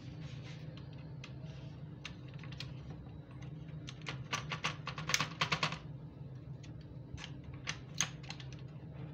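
Small clicks and taps of tweezers and fingers handling parts inside an opened infusion pump, with a quick run of clicks about four to six seconds in, over a steady low hum.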